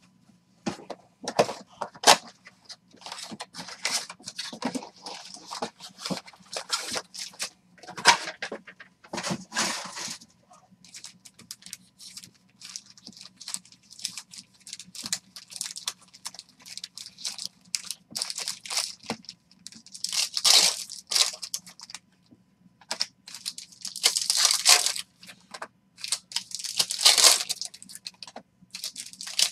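Trading-card box wrap and foil pack wrappers being torn open and crinkled by hand: a run of short rips and crackles, with louder tears about twenty, twenty-four and twenty-seven seconds in.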